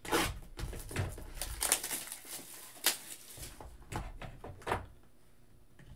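Hands handling and opening a sealed cardboard box of hockey cards on a table: irregular rustles, scrapes and clicks, stopping about five seconds in.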